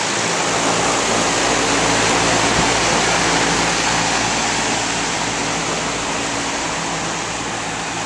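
American Standard 5-ton rooftop package heat pump running in cooling mode: a steady rush of air from the condenser fan discharging up through the top grille, with a steady hum underneath. A low rumble of air blowing across the microphone joins about half a second in.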